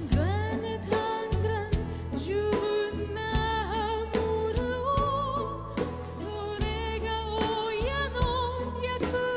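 A woman singing a slow melody with vibrato, live, over a band's bass and a steady drum beat.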